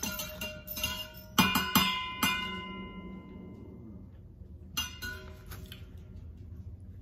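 Spoon stirring sugar into a cup of coffee, clinking against the cup: a run of quick clinks, three louder ones about a second and a half to two seconds in that ring on, then a single clink near five seconds.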